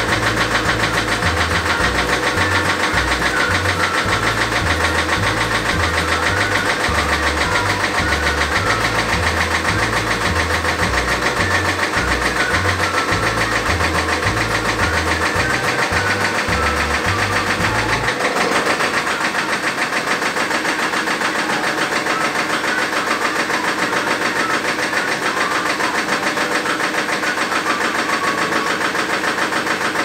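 An engine runs steadily with a fast even pulsing, driving the hydraulics of a homemade tractor backhoe as its swing bracket is moved. A deeper low throb underneath drops away about two-thirds of the way through.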